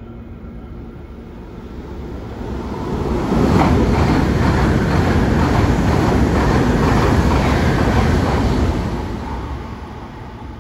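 E2 series Shinkansen train passing through a station at speed without stopping: a rush of wheels on rail and air that builds over a couple of seconds, stays loud for about five seconds as the cars go by, then fades as the train moves away.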